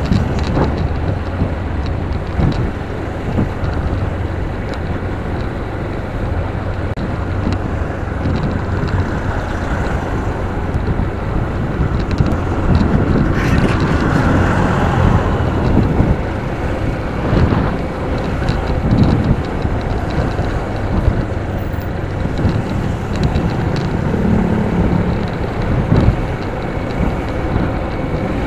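Motorcycle engine running steadily while riding, with wind noise on the helmet microphone and trucks and cars going by close alongside; the noise swells for a couple of seconds about halfway through.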